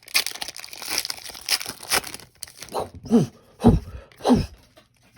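Foil Pokémon booster pack wrapper being torn open and crinkled for about two seconds. This is followed by three short, loud sounds that each drop sharply in pitch, a little over half a second apart.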